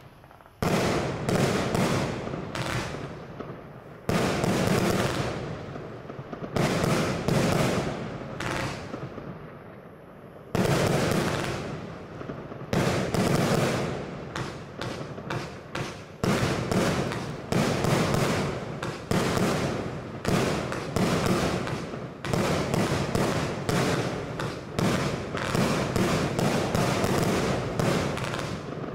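A 75-shot fireworks compound cake firing: a rapid series of launch thumps and aerial bursts, several a second, with a short lull about ten seconds in.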